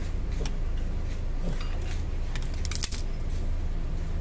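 Light metallic clicks and clinks of a thin hand tool and the brake pads knocking against a front disc brake caliper, a few scattered ones with a quick cluster a little before three seconds in. A steady low hum runs underneath.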